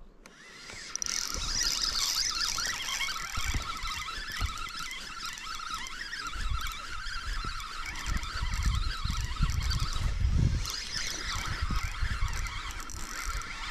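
A flock of geese honking continuously, starting about a second in. Wind gusts on the microphone in the middle.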